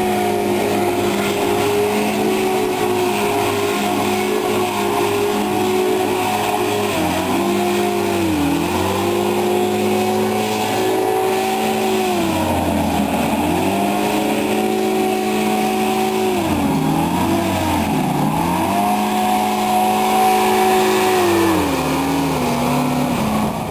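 MAD-81 hovercraft's engine and rear ducted fan running hard. The engine speed dips and climbs back four or five times, with a fall in pitch at the end.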